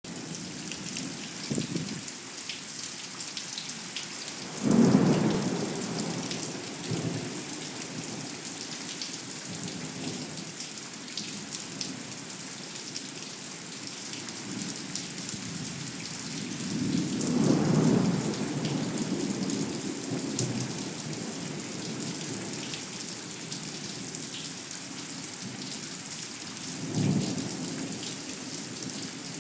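Thunderstorm: steady rain hissing throughout, with rumbles of thunder. The loudest comes on suddenly about five seconds in, a longer, slower-swelling rumble follows past the middle, and a shorter one comes near the end.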